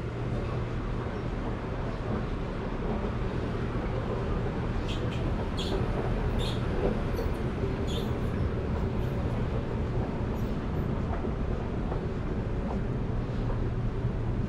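Steady background hum and noise of a shopping mall's interior, with a few light clicks between about five and eight seconds in.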